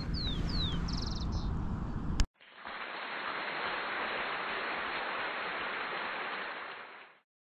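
Outdoor ambience with a few short falling bird chirps, cut off abruptly after about two seconds. It is followed by a steady rushing hiss, like water or wind, lasting about five seconds and fading out near the end.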